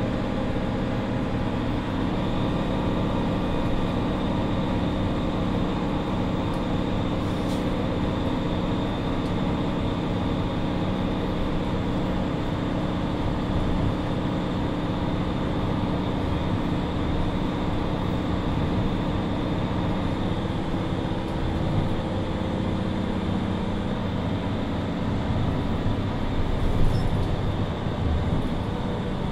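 Mercedes-Benz Citaro II city bus heard from inside the passenger cabin while under way: a steady engine hum over road rumble, with a short knock near the end.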